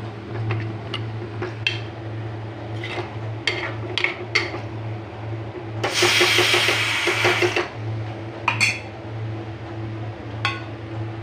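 A ladle stirring thick curry in a clay pot. The ladle knocks and scrapes against the pot now and then, and for about a second and a half near the middle there is a louder hissing scrape. A steady low hum runs underneath.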